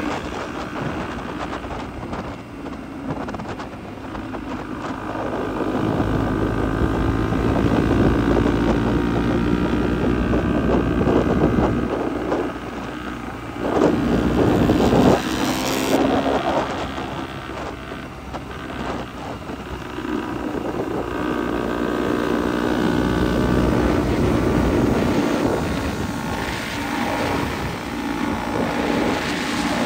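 Dirt bike engines running on the road, the engine note rising and falling as the throttle changes, with wind buffeting the microphone.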